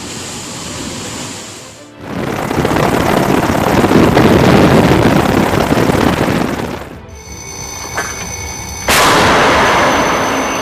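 Military weapons fire over background music. A loud rushing roar lasts about five seconds, then a sudden blast about nine seconds in fades away slowly.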